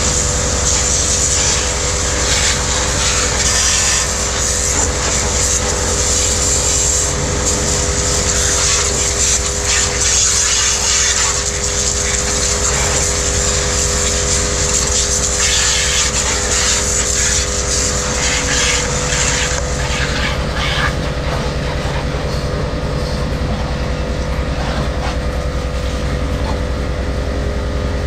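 Yodha YD 120 electric car pressure washer running steadily: a constant motor hum with a steady whine, over a hiss that eases off about twenty seconds in.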